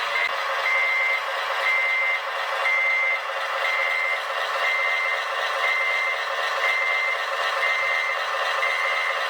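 Reversing beeper of a model RC construction vehicle's sound module, beeping steadily about once a second over the model's steady hum: the vehicle is backing up.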